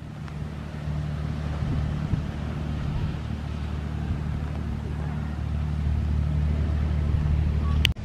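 Engines of a passing party fishing boat droning steadily at cruising speed, over wind and water noise. The drone cuts off suddenly near the end.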